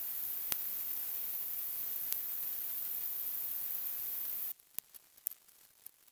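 A steady hiss, even and strongest in the high range, that cuts off suddenly about four and a half seconds in. A few faint clicks follow.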